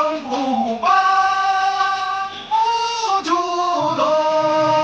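A voice singing long held notes in a music track, each note sustained for a second or more before moving to a new pitch.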